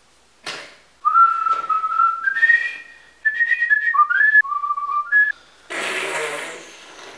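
A man whistling a short tune, one clear note at a time stepping up and down in pitch, for about four seconds. Near the end comes a second of loud hiss.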